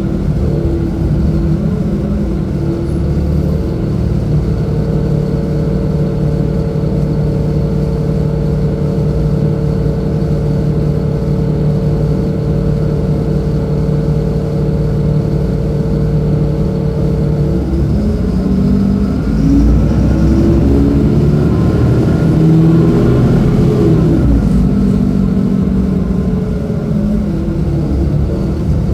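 Mercedes-Benz O-500U bus's OM-926LA diesel engine running, its note steady at first; about 18 s in the engine speed rises and falls through several pitch changes before settling again.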